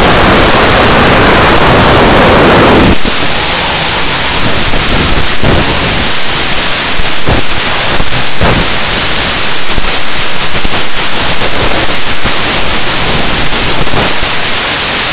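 Loud, steady white-noise static hiss. About three seconds in it changes to a thinner, flickering hiss.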